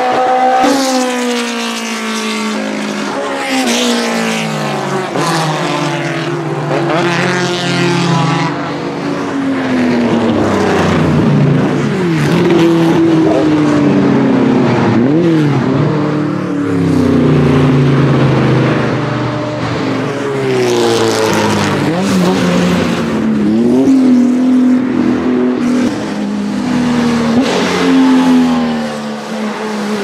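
Race car engines revving hard and accelerating through the gears, the pitch climbing and dropping sharply at each change, beginning with a classic open-wheel single-seater race car passing.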